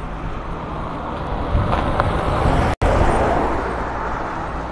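Cars passing close by on a road: engine and tyre noise swells about a second and a half in and then fades, broken by a momentary dropout near the middle.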